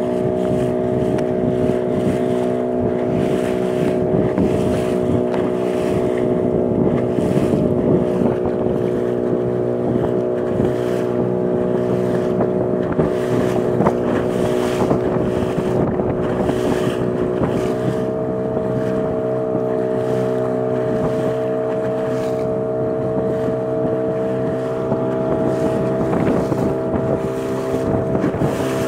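A small fishing boat's motor running steadily while the boat is under way, with wind buffeting the microphone. The engine note shifts slightly a little past halfway.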